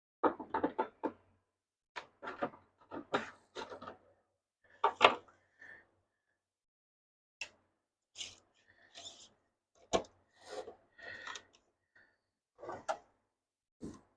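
Cedar fence pickets being handled and set down: short bursts of wooden knocks and clatter, a dozen or so, with quiet gaps between.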